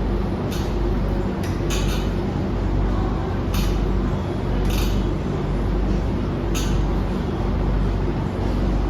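Hands pressing on a patient's back and clothing during chest physiotherapy, giving a few brief, soft rustles at irregular moments over a steady low background hum.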